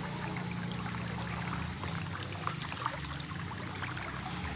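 Shallow river water running over stones and around feet, a steady rush with scattered small splashes from hands and feet in the current. A faint low steady hum sits underneath.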